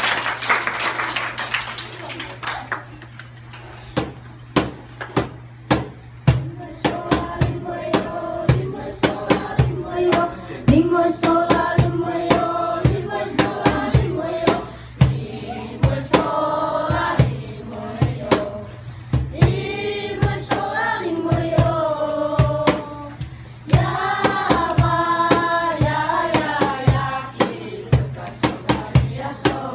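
A children's group singing together over a steady, sharp percussive beat. The beat starts about four seconds in, and the voices come in a few seconds later, pausing briefly twice.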